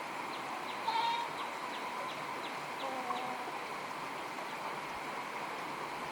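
Farmyard animal calls over steady outdoor ambience: one short call about a second in, a few fainter calls around three seconds in, and a run of about three high ticks a second over the first few seconds.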